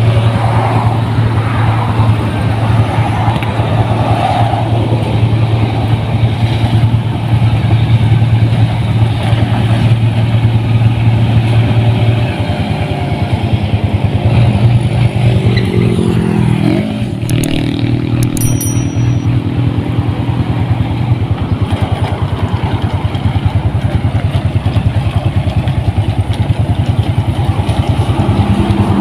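Rice combine harvester's engine running loud and steady. Its note changes a little past a third of the way in, and there are some gliding shifts in pitch around the middle as the machine works.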